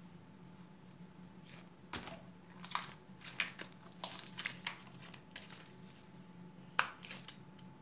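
Sticky clear glue slime, activated with borax water, being squeezed and pulled off the hands. It makes a scatter of short wet crackles and pops, with one sharp pop near the end.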